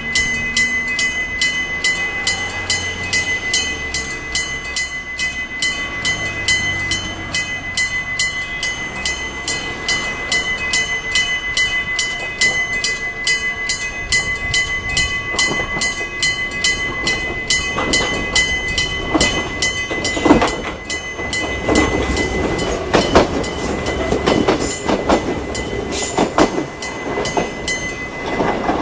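Electric bell of an old-style railway level crossing ringing steadily in rapid, even strokes, the warning that a train is coming. From about the middle a train rolls through, its wheels clacking over the rail joints; the bell stops just before the end.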